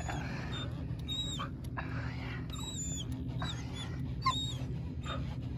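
A dog whining: short high-pitched whines repeated every second or so, over a steady low hum.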